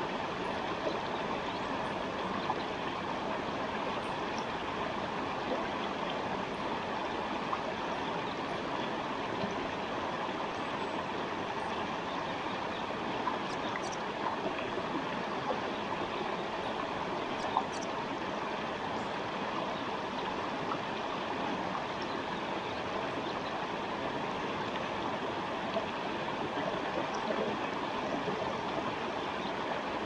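Forest stream flowing, a steady rush and babble of water over stones.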